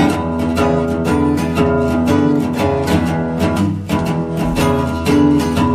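Instrumental background music: plucked acoustic strings playing over a steady beat.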